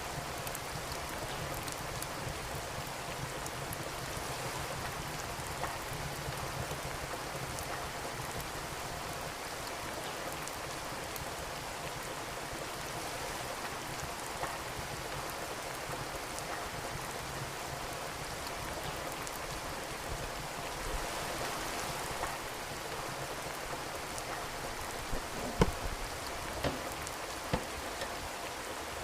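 Steady rain, with occasional sharp crackles and pops from a wood fire in a fireplace, a handful of louder pops close together near the end.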